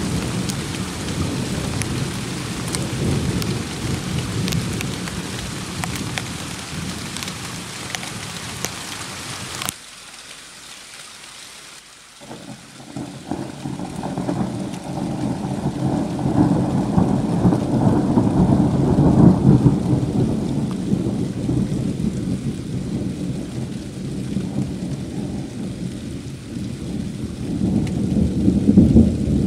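Thunderstorm: steady heavy rain hissing under low thunder rumbles, cut off abruptly about ten seconds in. After a short quiet spell a long roll of thunder builds, peaks and fades, and another roll rises near the end.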